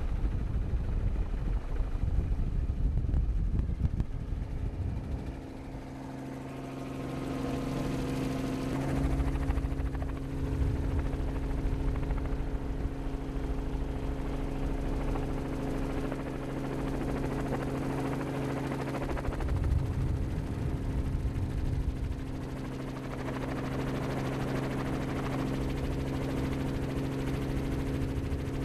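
Helicopter in flight, its engine and rotor running with a steady hum of several held tones. A low wind rumble on the microphone comes and goes, strongest in the first few seconds and again about two-thirds of the way through.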